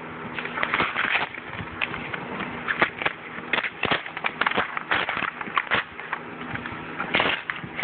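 Cardboard box and paper being torn open by hand: a quick, irregular run of ripping and crinkling crackles, over a faint low steady hum.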